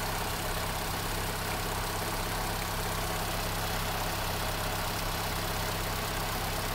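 Opel Combo's petrol engine idling steadily with a cable at the throttle body unplugged, which has made the stuttering, shaking engine run better at once.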